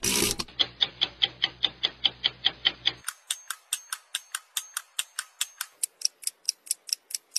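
Rapid, even ticking, about five ticks a second. About three seconds in a low hum under it cuts off and the ticks turn sharper and brighter, then slow slightly near the end.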